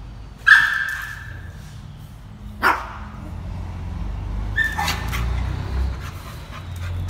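A dog barking: three sharp, high-pitched barks, about half a second, two and a half and four and a half seconds in, the first the loudest.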